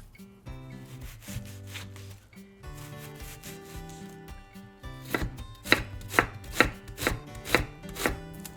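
A kitchen knife chopping on a cutting board: about seven sharp strokes at roughly two a second, starting about halfway through.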